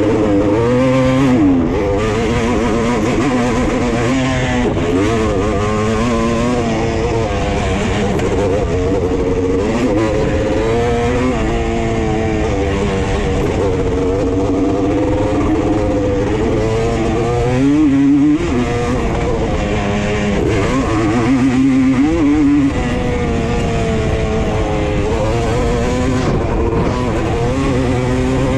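ATV engine running under way, its note rising and falling as the throttle is worked, dipping sharply and picking up again twice near the middle.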